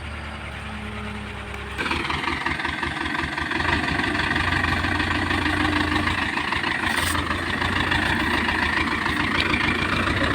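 Heavy diesel engine running steadily, getting louder about two seconds in and then holding at that level.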